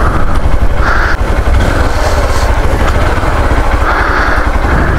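Hero Xpulse 200 motorcycle's single-cylinder engine idling steadily while the bike coasts slowly in neutral, with a heavy, even low rumble.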